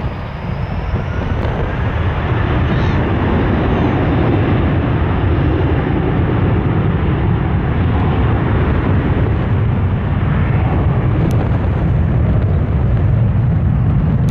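Airbus A321-200 jet airliner's engines running loud as it rolls along the runway, the noise building over the first couple of seconds and then holding steady.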